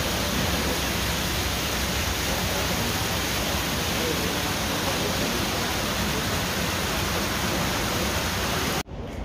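Steady rushing noise, even and without any pitch, that cuts off abruptly near the end.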